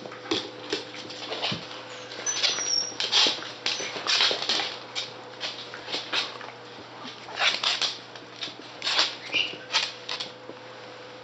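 West Highland White Terrier puppies scuffling in play, with irregular clicks and scrapes of small claws on a wooden floor and a few brief high squeaks.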